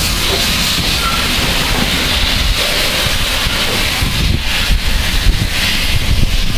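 BR Standard Class 5 steam locomotive 73096 standing with steam hissing steadily and loudly, with wind buffeting the microphone underneath.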